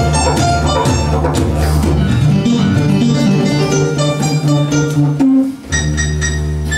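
Live instrumental music: a didgeridoo's steady low drone under keyboard notes and hand-drum taps. About five seconds in, the drone and low notes stop for half a second, then return with high, bright keyboard notes.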